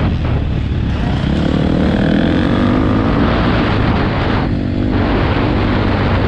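Motocross bike engine revving hard under the rider, its pitch rising and falling with the throttle and easing off briefly about four and a half seconds in, heard from a helmet-mounted camera with wind rushing over the microphone.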